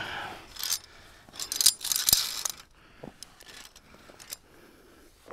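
Via ferrata lanyard carabiners clinking and scraping against the steel cable and rock fittings, in a cluster of sharp metallic jingles about a second and a half in, after a brief hiss at the start.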